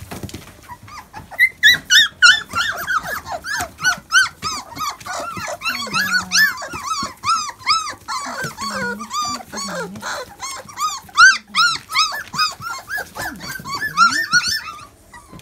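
A litter of doodle puppies whining and squealing as they jostle to nurse from their mother. Many short, high, arching cries overlap, several a second, with a few low calls among them.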